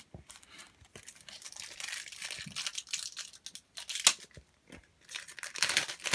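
A foil trading-card booster packet being torn open and crinkled by hand, with irregular crackling, a sharp snap about four seconds in and a louder crinkle near the end.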